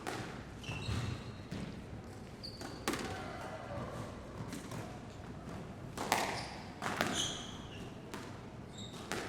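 Sports hall ambience: balls bouncing and thudding on the floor at irregular moments, each impact echoing in the large hall, with short high squeaks now and then over a steady background hum of the room.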